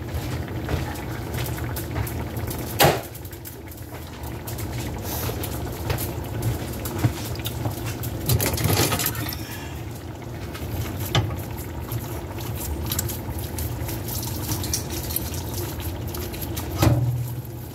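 Thick refried beans being worked and stirred in a pan on a gas stove as they start to heat, a wet squishing with a few sharp knocks of the utensil against the pan, over a steady low hum.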